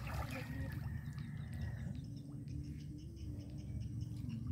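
Faint sloshing and small splashes of muddy pond water around people wading neck-deep, over a steady low rumble and a faint wavering hum.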